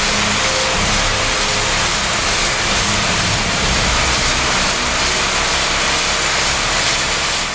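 Jetstream RotoMag X22 rotary waterblasting tool running, its high-pressure water jets spraying with a loud, steady hiss over a low drone.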